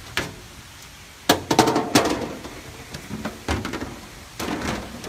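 Several sharp knocks and clatters of objects being handled and set down, in a quick cluster about a second in, once more midway and again near the end.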